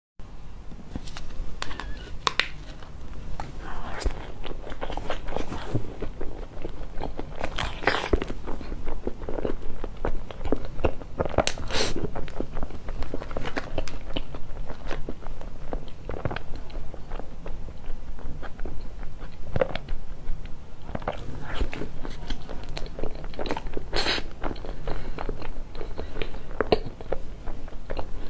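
Close-miked biting and chewing of a soft rolled crepe cake, heard as irregular mouth clicks all through, with a few louder bites.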